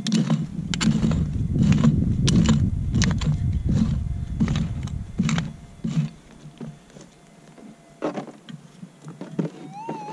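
A prospecting pick striking and scraping into stony, gravelly soil, about two hits a second for the first six seconds, while the metal detector's faint steady threshold tone sounds underneath. Near the end the detector gives a warbling target signal as its coil is swept over the dug hole.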